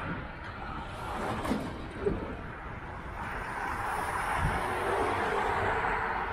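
Wind rumbling on a head-mounted action camera's microphone while a bicycle rolls over rough ground. A louder rush of noise builds from about halfway in.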